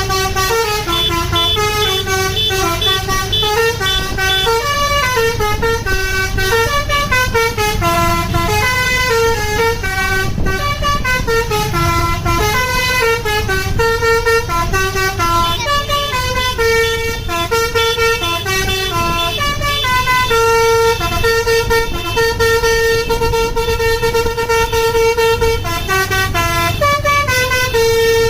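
Bus basuri musical multi-tone horn (telolet) playing a continuous melody of stepping and held notes, over a steady low rumble.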